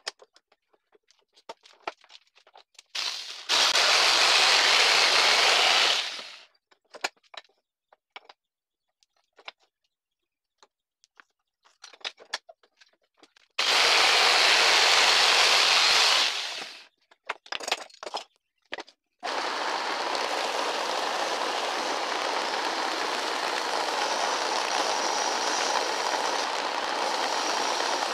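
Electric jigsaw cutting a thin strip of wood in two short runs of about three seconds each, with small handling clicks before and between them. About two-thirds of the way in, a bench-top belt sander starts and runs steadily as a small wooden piece is sanded against it.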